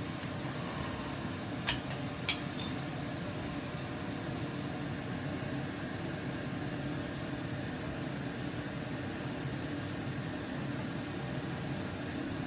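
Steady mechanical hum, like a running fan or motor, with two sharp clicks about two seconds in.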